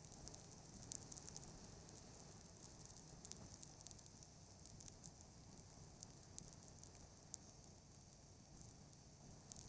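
Near silence: faint, irregular crackling and ticking over a low hiss.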